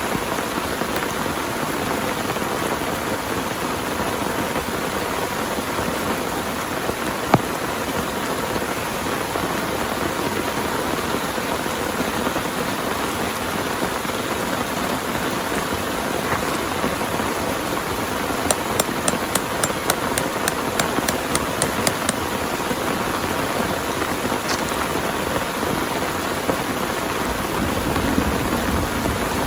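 Heavy rain falling steadily. A single sharp tap comes about seven seconds in, and a quick run of about a dozen light ticks, roughly three or four a second, comes about two-thirds of the way through.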